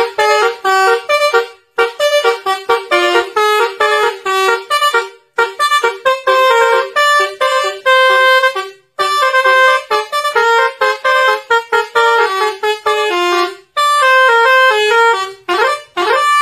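Telolet horn, a multi-tone truck air horn, tooting a fast melody of short notes in several phrases with brief breaks, ending in a quick rising run.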